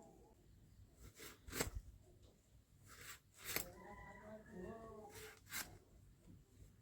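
Bottle gourd (lau) stems being cut: three pairs of sharp, crisp snaps, each pair about half a second apart. A faint voice is heard between the second and third pair.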